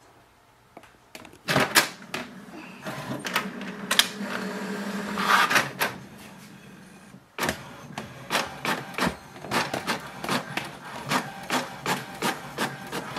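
HP DeskJet 2700-series inkjet printer starting up and printing its information page after a hard reset. It begins about a second and a half in with clunks and a motor hum as the sheet is drawn in, then, after a brief lull, a run of regular clicks, about two or three a second, as the print carriage passes back and forth.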